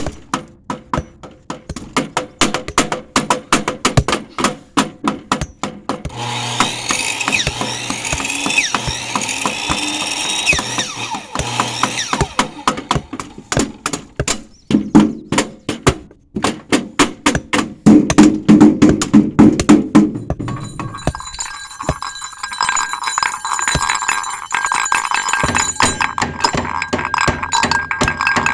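Shed-building construction sounds: rapid hammer blows, several a second, alternating with stretches of power tools running, a saw or drill, near the middle and again toward the end.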